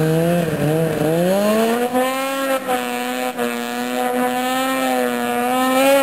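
Snowmobile engine held at full throttle while skimming across a pond. Its pitch dips about a second in, then climbs and holds high and steady as the sled bogs down in the water.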